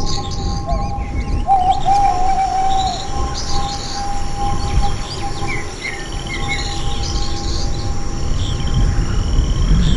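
Birds chirping and twittering in quick high calls, with a longer held whistled note about a second and a half in, over a steady low rumble: a night-time nature soundscape.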